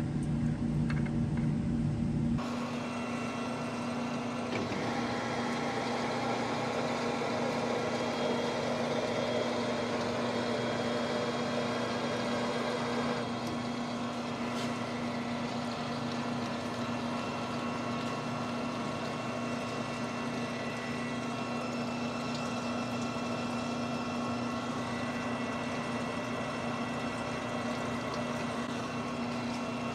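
Precision Matthews metal lathe running steadily with a constant hum while single-point cutting a left-hand Acme thread on a lead screw under flood coolant, taking light finishing passes. A louder, lower hum in the first two seconds cuts off abruptly.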